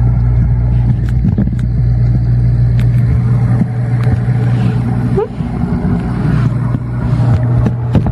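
A steady low machine hum with scattered light clicks, and one short rising squeal about five seconds in.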